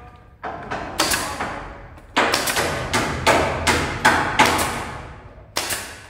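Pneumatic nail gun firing into roof framing: about a dozen sharp shots in uneven bursts, each followed by a brief ring.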